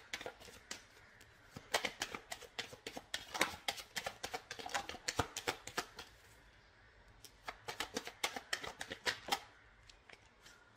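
A tarot deck being shuffled by hand: two spells of quick snapping clicks from the cards, the second starting about seven seconds in.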